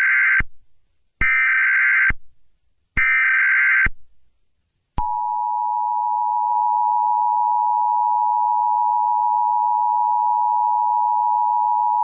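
Emergency Alert System SAME header: bursts of digital data tones about a second long, separated by short gaps, the first already under way. About five seconds in, the steady two-tone EAS attention signal (853 and 960 Hz) begins.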